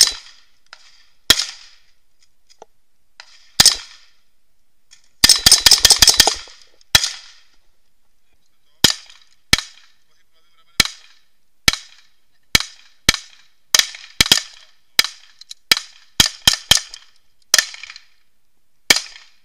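Rifle gunfire: a few single shots, then a rapid full-automatic burst of about ten rounds around five seconds in. After a short pause a handgun fires steady single shots, about one a second, with a few quick pairs near the end.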